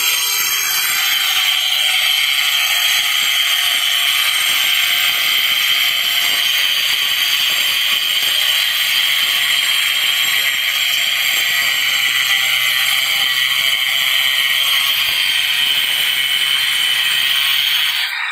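Handheld electric angle grinder with a thin cutting disc running steadily as it cuts into ceramic floor tile, a loud high-pitched grinding whine that holds even throughout.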